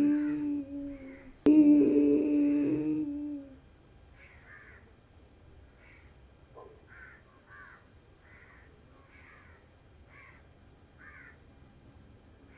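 Ujjayi pranayama breath drawn in through a constricted throat, a steady humming drone. It is broken by a sharp click about a second and a half in and stops about three and a half seconds in. Faint, repeated bird calls follow.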